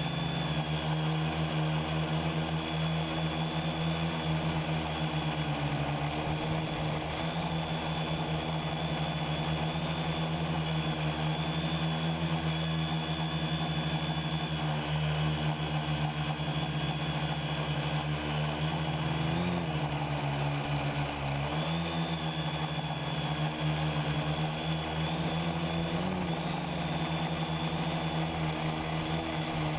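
Quadcopter's motors and propellers heard from a camera mounted on the craft: a steady buzzing hum with a high whine over it, the pitch wavering briefly a few times in the second half as the throttle shifts.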